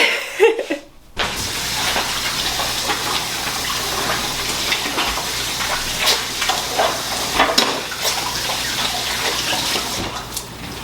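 Water running steadily from a tap, starting about a second in and easing off near the end.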